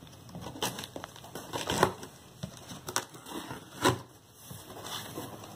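Cardboard shipping box being opened by hand: the flaps and packing tape crackle and scrape, with two sharper snaps about two and four seconds in.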